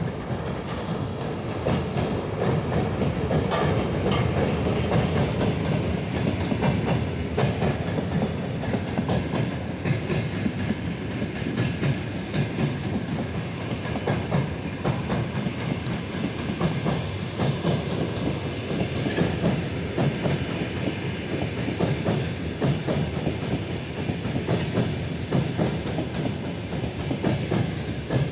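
Passenger train coaches rolling past, their wheels clattering over rail joints in a steady clickety-clack.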